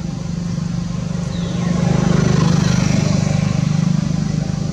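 A motor vehicle's engine running with a fast, even pulse, growing louder about two seconds in and easing off near the end.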